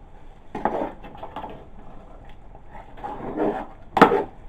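A metal spoon stirring thick soup in a metal pot, scraping and clattering against the pot's side in irregular strokes, with one sharp knock of the spoon on the pot about four seconds in.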